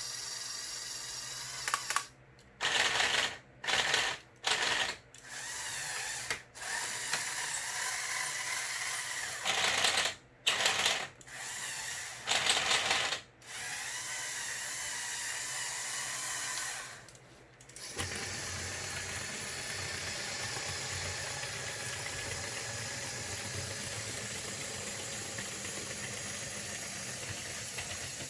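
Small electric motors and plastic gears of a motorized Lego Technic excavator model, whining as they run, starting and stopping repeatedly in the first half and then running steadily from a little past the middle.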